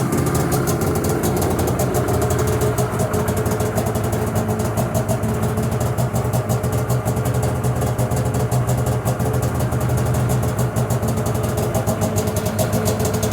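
Arctic Cat Crossfire 600 snowmobile's fuel-injected two-stroke twin idling steadily, with no revving.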